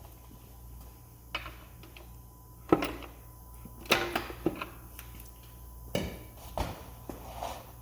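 A series of about six sharp metallic clicks and clunks, the loudest nearly three seconds in, as the shift forks of a Porsche PDK transmission are shifted through their positions. A steady electrical hum runs underneath.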